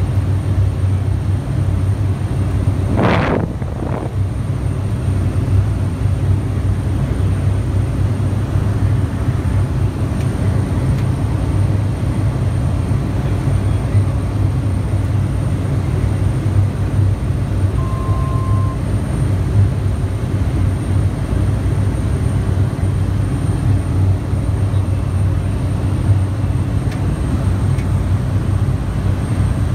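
Cessna 208 Caravan's single Pratt & Whitney PT6A turboprop and propeller droning steadily, heard inside the cockpit, with a thin high whine above the low drone. A brief burst of noise about three seconds in, and a short beep a little past halfway.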